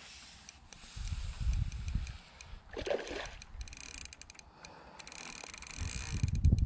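Wind buffeting the microphone in low gusts, with a small splash on the water about three seconds in.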